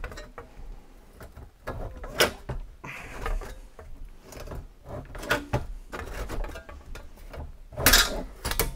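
Bench-mounted hand lever shear cutting through scrap sheet metal, worked stroke by stroke: a series of sharp metallic snaps and knocks, the loudest near the end.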